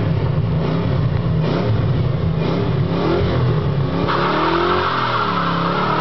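Ford Mustang 5.0 LX's 302 V8 revving hard with a heavy, uneven rumble. About four seconds in, a squealing hiss of spinning rear tyres joins in as the car goes into a burnout, while the engine pitch wavers.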